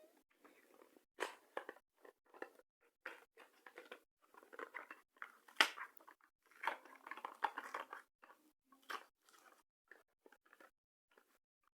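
Toy packaging being handled and opened: irregular crinkling and crackling of plastic and cardboard, with one sharp click about halfway through.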